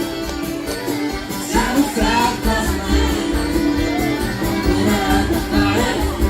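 A band playing a country-folk song with singing and a steady low beat.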